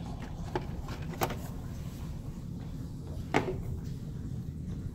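Three short clicks and knocks of hands handling metal fittings inside an open vending machine, the loudest about three and a half seconds in, over a steady low hum.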